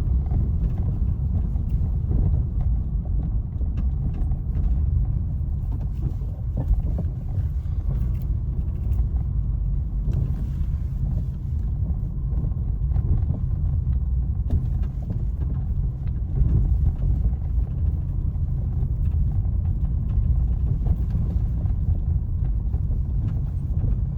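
Inside the cabin of a Honda HR-V driving over an undulating street: a steady low road rumble with scattered faint knocks from the front suspension, a noise typical of worn front control arms and shock absorbers on this model.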